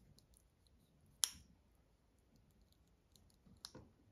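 One sharp click about a second in, then a few fainter clicks near the end, as fingertips press glass camera-lens protectors down onto a phone's camera bump.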